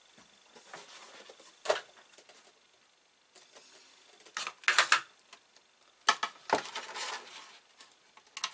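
Handling noises on a desk: clicks, knocks and rattles as things are moved about and a flat-screen monitor on its stand is set in place. The loudest is a quick clatter of several sharp knocks about halfway through, with more knocks and rustling a little after.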